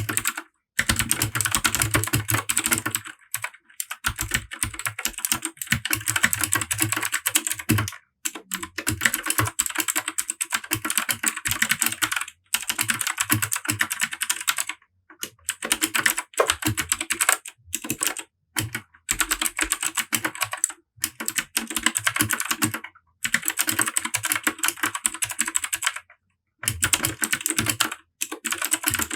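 Typing on a Royal Kludge RK100 mechanical keyboard fitted with Gateron Blue clicky switches: dense runs of sharp key clicks a few seconds long, broken by short pauses.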